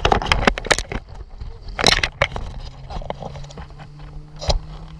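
Irregular crunching footsteps in beach sand, mixed with knocks and rubbing from the handheld camera as it swings.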